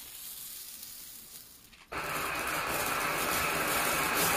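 A faint hiss of a hand-held firework dying away. About two seconds in, a ground fountain firework's loud, steady hissing spray of sparks cuts in abruptly.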